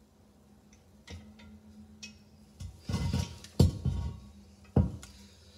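Porcelain toilet bowl being lowered over the closet bolts and set down on the floor: scattered knocks and bumps starting about a second in. The loudest is a sharp knock a little past halfway, with one more knock near the end.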